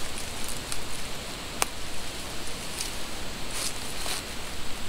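Footsteps rustling and crunching through dry fallen leaves, with scattered crackles and one sharp snap about a second and a half in.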